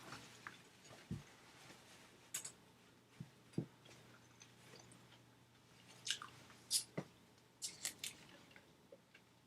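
A person chewing fast food close to the microphone: scattered wet mouth clicks and smacks, busiest near the end, with a few soft low thumps.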